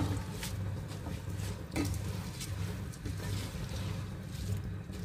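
Raw rice being stirred through spiced masala with a spatula in a steel pot: soft scraping and shuffling of grains against the metal, over a steady low hum.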